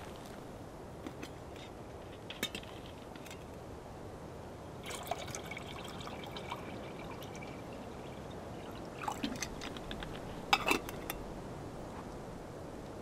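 Water poured from a bottle into a metal camp pot for about two seconds, starting around five seconds in. A few sharp clinks and knocks follow a few seconds later as the gear on the table is handled.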